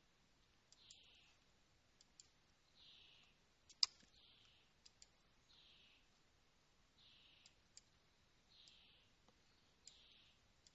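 Near silence, with scattered faint clicks, one louder about four seconds in, and soft hiss that comes and goes. The presenter's audio has dropped out over a slow internet connection.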